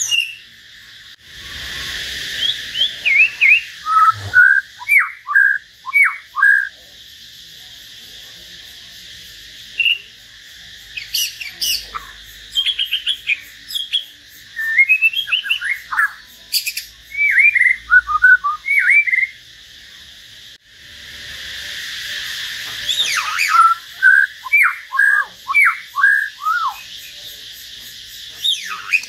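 Caged white-rumped shama and hill myna singing in turn: phrases of quick, sweeping whistled notes with short pauses between them. A hiss in the background swells twice.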